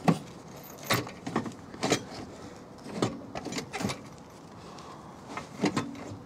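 Irregular metallic clanks and knocks, about six in a few seconds, from the gearbox and trolley jack as the gearbox is worked loose to be lowered out of the car.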